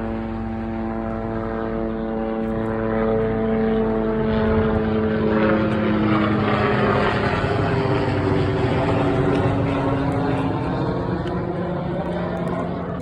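Low-flying aircraft passing overhead: its engine drone swells, drops in pitch as it goes by about halfway through, then fades slightly.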